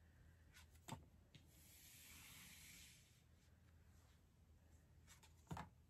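Faint handling of tarot cards over near silence: a soft tap about a second in, a light sliding rub just after, and another tap near the end.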